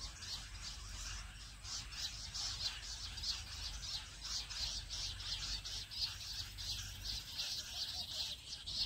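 Jungle bush quail calls: a steady, rapid run of high chirps, about four a second.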